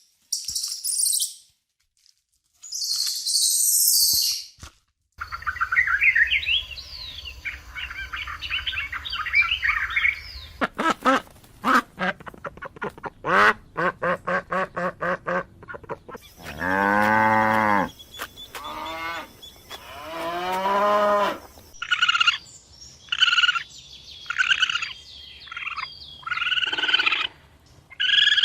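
A run of different animal calls, one short clip after another: hissing bursts, high chirping, rapid pulsed calls, then longer calls that fall in pitch and a string of shorter high calls.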